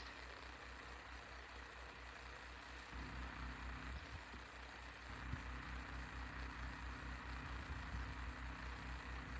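Faint steady low hum of room tone, with a second faint low hum joining about three seconds in and a few tiny ticks.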